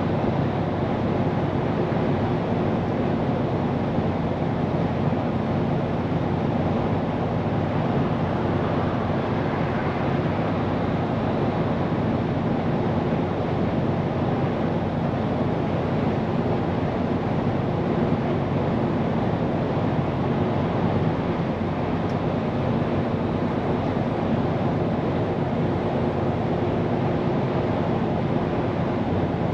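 Scania P410 truck on the move, heard inside the cab: a steady diesel engine drone under a constant rumble of tyres and road.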